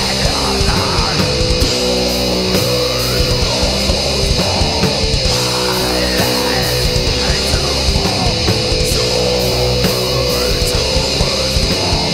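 Blackened doom metal: distorted electric guitars and bass holding heavy chords over drums, playing steadily and loud.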